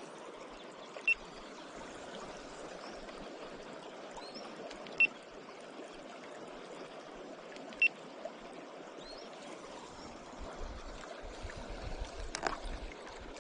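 River current running over a shallow riffle, a steady rushing of water. Three short, sharp, high ticks stand out a few seconds apart, and near the end there are some low rumbling knocks and a click.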